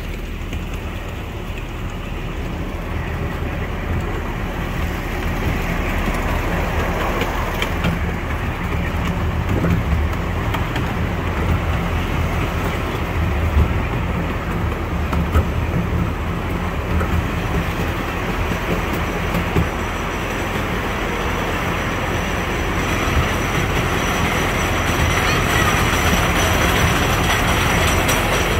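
Small park train running on its track, a steady rumble of wheels on rails with a few sharp clicks, growing louder toward the end.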